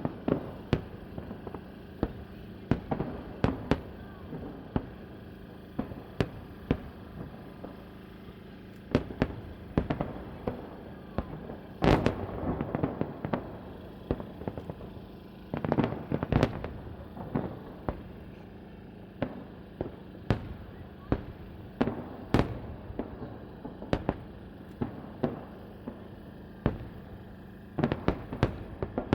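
Fireworks salute: a long run of sharp bangs from shells bursting, irregularly spaced, with each blast echoing and trailing off and dense volleys bunched together now and then.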